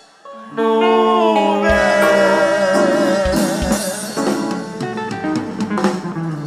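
Live Haitian dance band starting up sharply about half a second in: sustained group singing over electric guitar, bass and drum kit, with heavy bass drum hits.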